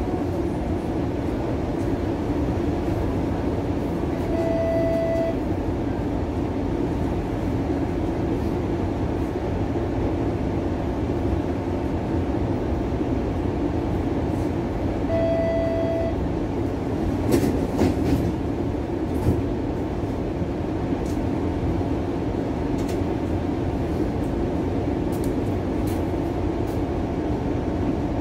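Interior of a Bombardier Flexity Outlook streetcar running along the track: a steady low rumble of motors and wheels on rails. Two short electronic beeps sound about ten seconds apart, and a few sharp knocks follow about two-thirds of the way through.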